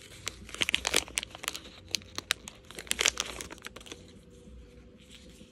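Crinkly plastic wrapper of a Foodie Mini Brands miniature being crumpled and torn open by hand, a dense run of sharp crackles that thins out after about three seconds.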